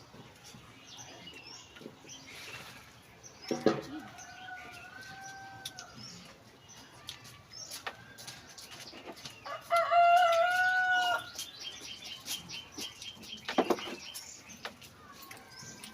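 A rooster crowing twice: a fainter crow about four seconds in and a louder one about ten seconds in, each a long, level-pitched call. Scattered short knocks and clicks sound between them.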